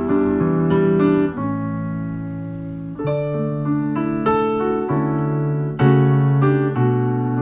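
Piano playing slow chords, a new chord struck about every second and left to ring and fade before the next.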